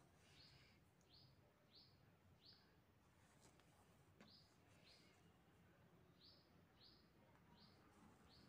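Near silence with faint bird chirps in the background: short, downward-sliding high notes repeated about every two-thirds of a second in runs of several. A single faint click comes about four seconds in.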